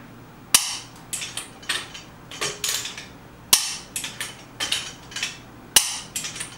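Click-type torque wrench breaking over on a car's wheel lug nuts, rechecking them at 100 lb-ft so that no nut was left on a false click. Three sharp clicks, a couple of seconds apart, each followed by a few lighter metallic clinks of the wrench and socket.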